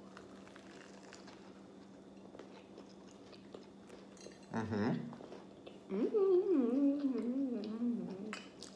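A person chewing a mouthful of sandwich, then humming 'mmm' with a full mouth as they taste it. There is a short hum about four and a half seconds in and a longer hum of about two seconds near the end, its pitch wavering up and down.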